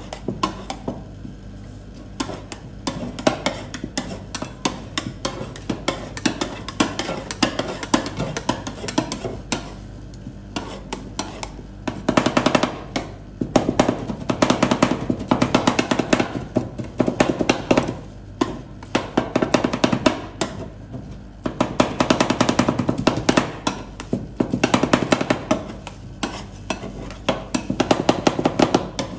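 Two metal spatulas chopping ice cream and Oreo cookie pieces on a frozen steel rolled-ice-cream pan: fast, rhythmic clattering of blades striking the metal plate. It comes in spells, with the longest and loudest runs in the second half.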